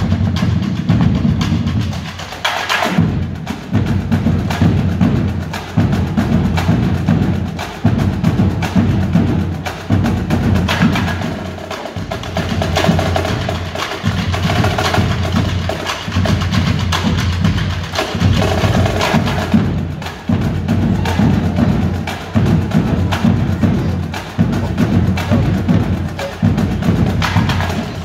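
A high school drumline playing: marching snare, tenor and bass drums with mallet keyboard percussion, in a steady driving groove of regular low drum pulses with a few bright accents.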